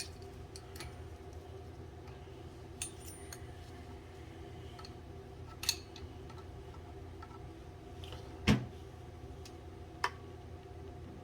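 Scattered metallic clinks and taps of hand tools on metal fittings, the loudest about eight and a half seconds in, over a steady low hum.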